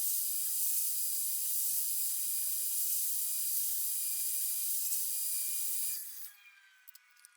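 Heat gun blowing hot air at around 200–220 °C onto a phone screen to soften its adhesive: a steady high hiss that fades out about six seconds in.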